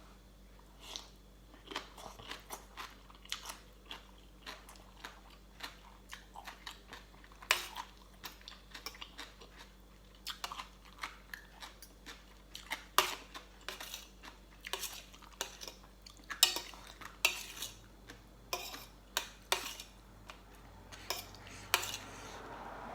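Eating at close range: crunchy chewing of spicy green papaya salad with chicken feet, mixed with cutlery clinking on a plate or dish. It comes as irregular sharp clicks and crunches, a few a second.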